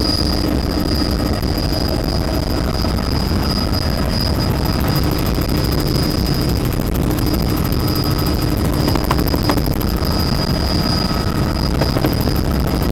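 Helicopter engine and rotor noise heard inside the cabin: a loud, steady rumble with a constant high whine above it.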